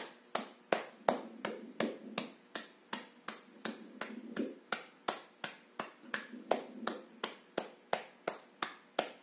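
A hand patting the upper chest below the collarbone in a steady rhythm, a sharp slap about three times a second, as a tapping massage to help loosen phlegm.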